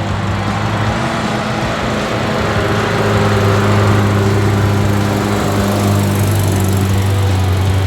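Off-road vehicle engine running at a steady speed, with a slight rise in loudness a few seconds in.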